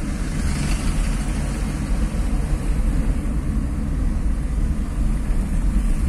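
Car driving along a street, heard from inside the cabin: a steady low rumble of engine and road noise.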